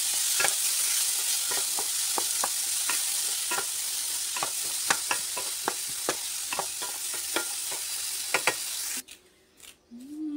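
Chopped vegetables frying in a metal pan, with a steady sizzle, while a wooden spatula stirs them and clicks and scrapes against the pan many times. The sizzle cuts off suddenly about nine seconds in.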